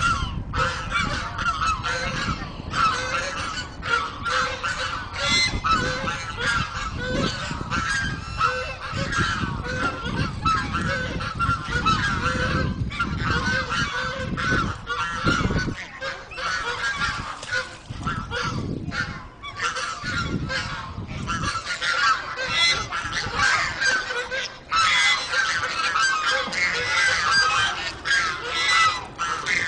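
A large flock of white domestic geese honking, many short calls overlapping without a break.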